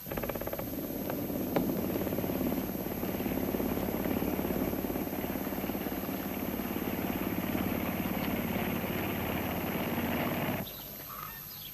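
An engine running steadily with a fast, even pulsing. It starts suddenly and cuts off abruptly about ten and a half seconds in.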